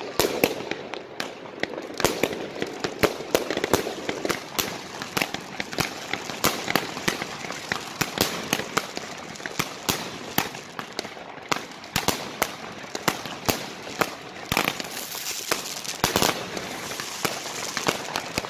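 Rubro Immortal Gold compound firework cake firing shot after shot of gold bursts: a dense run of sharp bangs and crackles, several a second, thickening into a hissing crackle a few seconds before the end.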